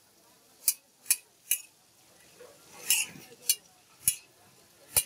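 Metal spatulas clinking and scraping against a wide, shallow metal frying pan while food is stir-fried, about seven sharp clinks at uneven intervals.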